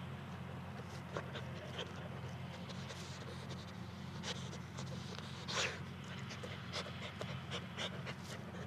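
Jack Russell terrier panting, with scattered short scratches and clicks and one louder rushing noise a little past halfway, over a steady low hum.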